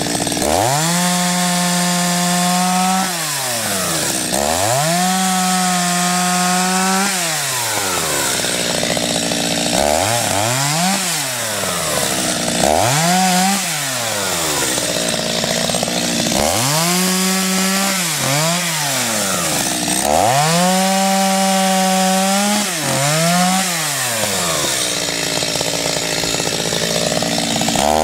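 Two-stroke chainsaw cutting poplar logs into rounds, its engine revving up and dropping back toward idle about eight times. Several times it holds a steady high pitch for about two seconds through a cut; other times it revs up and falls straight back.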